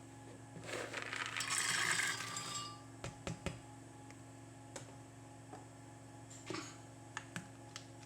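Small handling noises over a steady low hum: a rustling scrape lasting about two seconds, then a scatter of light clicks and knocks with a short scrape in between.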